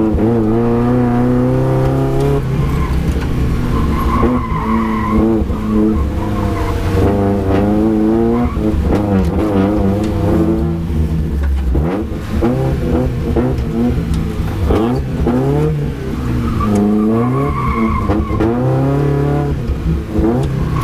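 Race car engine heard from inside the cabin, revving hard and dropping back again and again as it is driven round a tight course, with tyres skidding.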